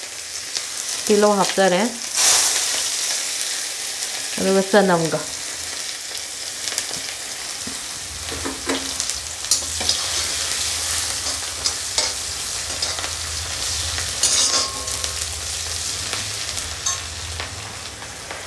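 Chopped onion and garlic sizzling in hot mustard oil in a wok with cumin seeds and bay leaves, stirred with a metal slotted spoon that scrapes and clicks against the pan now and then.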